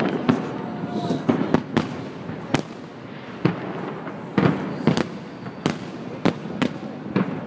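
Fireworks salute bursting in the sky: a dozen or so sharp bangs at uneven intervals, several followed by a short echo, over a steady background rumble.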